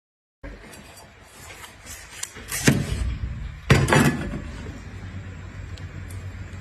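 Two loud thuds about a second apart over a steady low background hum.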